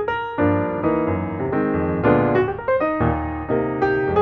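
Background music played on piano, a flowing run of notes and chords.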